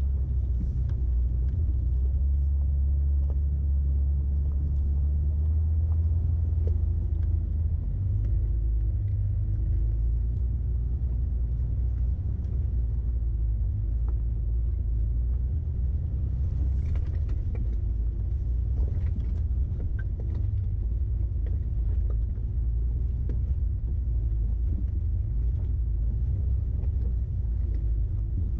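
Off-road vehicle's engine running at low speed, a steady low rumble with a faintly wavering engine note. A few knocks and rattles, most of them about two-thirds of the way through.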